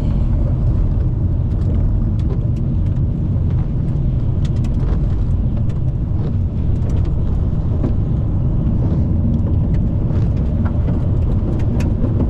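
Car being driven at speed: steady low road and engine rumble, with scattered faint ticks.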